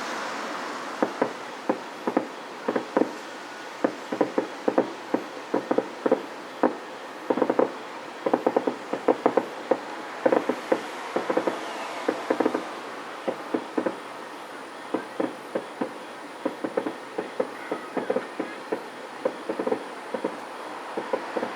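Distant fireworks display: a rapid, irregular string of sharp pops and bangs from bursting shells, often several a second and coming in clusters.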